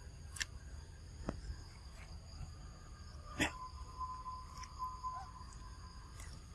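Insects droning steadily in high, even tones, over a low rumble. A few sharp clicks break in, the strongest about halfway through. Just after it, a clear, steady whistle-like tone starts and holds for about two and a half seconds.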